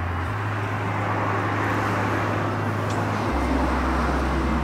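Road traffic noise: a steady rush of passing vehicles, with a low steady drone underneath that shifts pitch twice.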